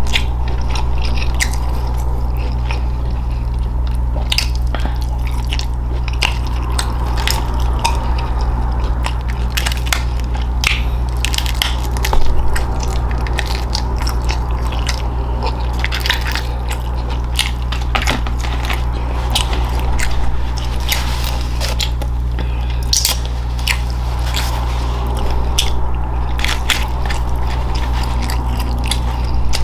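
Close-miked chewing of food, with many short crunches and mouth clicks over a steady low hum; one louder crunch comes about twelve seconds in.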